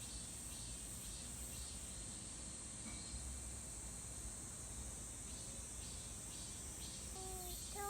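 Chorus of grass insects chirring steadily, a continuous high trill. Near the end, a short pitched call cuts in over it.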